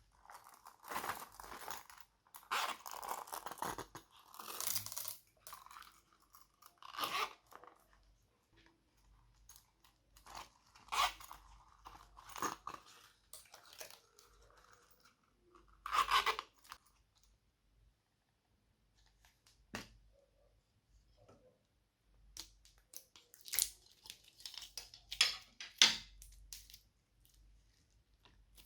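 Slime being squeezed, stretched and pulled apart by hand, making irregular bursts of crackly, tearing sounds with a few sharp clicks, and a quiet pause about two-thirds of the way through.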